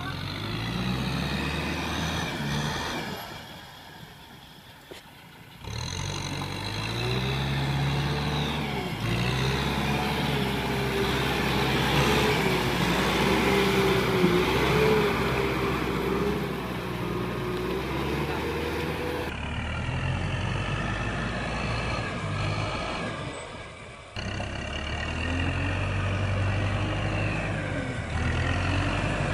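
Kubota M6040 tractor's diesel engine working under load in deep mud, its pitch rising and falling as it is revved to drive the bogged tractor out. The engine sound drops away briefly twice, once a few seconds in and again about two-thirds through.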